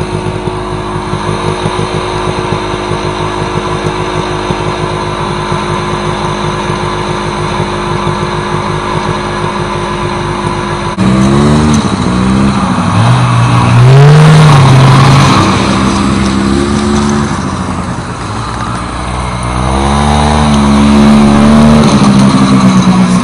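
Small two-stroke snowmobile engine running steadily at idle. About halfway through, after a cut, snowmobile engines rev up and down as the sleds are ridden, the pitch rising and falling in two long swells.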